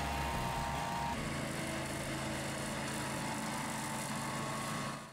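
Grillo Climber 10AWD27 ride-on brush mower's engine running steadily as it drives across grass. Its tone shifts slightly about a second in, and it fades out at the very end.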